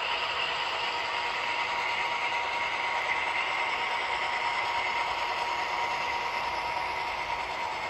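HO scale model freight train with a Southern Pacific SD40T-2 locomotive running past at speed: a steady whir of wheels on the rails and the motor, with a thin steady whine.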